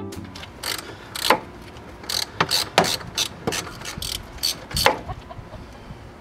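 Hand ratchet clicking in short, uneven runs of sharp clicks while loosening a worm-drive hose clamp on the rubber boot of a Ford 6.0L Power Stroke's intercooler pipe.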